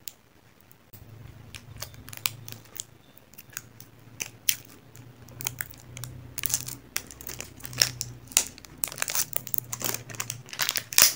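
Plastic shrink-wrap seal being picked at and peeled off a lipstick tube: irregular crinkling and crackling, sparse at first and coming thick and fast in the second half.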